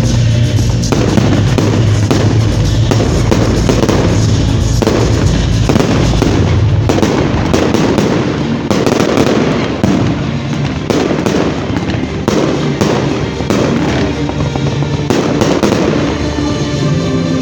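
Aerial fireworks going off in quick succession, a dense run of bangs and crackles with barely a gap between reports.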